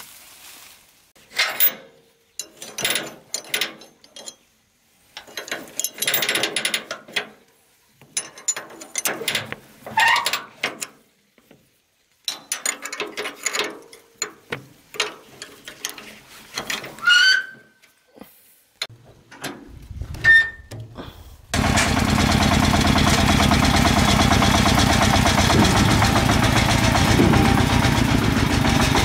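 Scattered clattering and handling noises with short silences between them, and two brief rising squeaks. About three-quarters of the way through, a loud, steady machine sound starts abruptly and keeps running.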